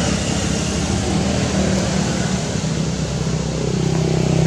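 A motor engine running steadily with a low hum, growing louder near the end.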